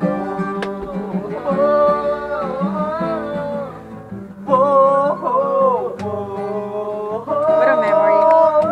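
People singing a Tagalog love song to acoustic guitar, the sung notes held and wavering.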